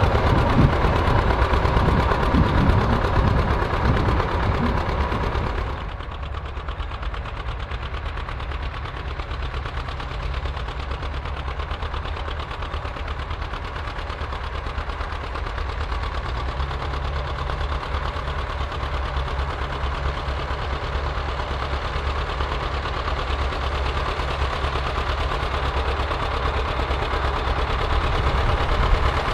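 John Deere tractor engines running under load while ploughing. About six seconds in, the sound cuts abruptly to a quieter, steadier engine.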